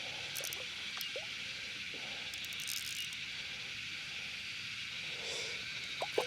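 Cicadas in the waterside trees making a steady high buzz, with a few small sharp clicks near the end.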